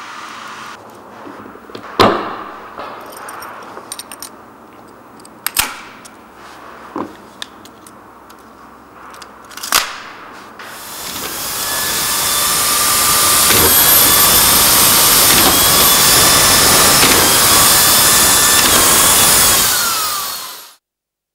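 A few sharp clicks and snaps as a driver bit is fitted and a Quik Drive collated-screw attachment is clipped onto an electric screwdriver. From about halfway, the power screwdriver runs steadily with a whine that shifts pitch in small steps, cutting off shortly before the end.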